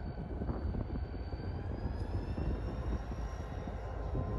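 Diesel-electric locomotive engine running: a steady low rumble with a faint high whine that rises slightly in pitch about two seconds in.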